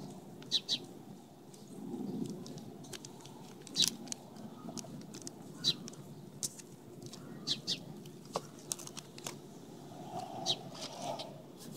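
Clear plastic sheet protectors in a ring binder crinkling and crackling as the pages are turned and handled. The crackles come irregularly, sharp and short, over a low background rumble.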